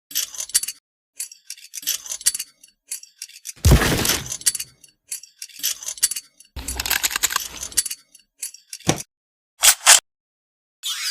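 An airsoft gun being handled and fired: a series of sharp clacks and metallic clicks, each cut off abruptly with short silences between. Near the end a loud falling swoosh begins.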